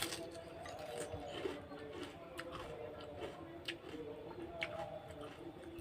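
Close-miked eating: chewing with scattered sharp clicks and crunches, the loudest right at the start.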